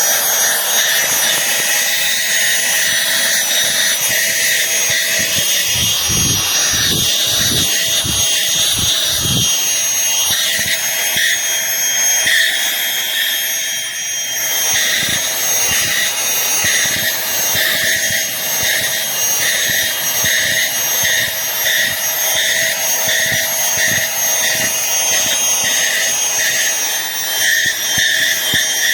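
Aspiron cordless handheld vacuum cleaner running, a steady high motor whine over rushing air that pulses regularly about once a second. A few low bumps come about a quarter of the way through.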